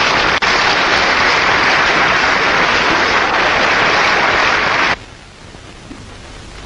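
Large assembly hall applauding, a dense, steady clatter of many hands that cuts off abruptly about five seconds in, leaving only the faint hiss of an old film soundtrack.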